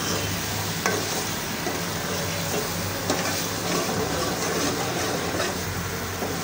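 Thick spinach-and-mutton curry (palak gosht) sizzling in a metal pot as a metal spoon stirs it round. There are a few sharp clicks, about one every two seconds, from the spoon against the pot.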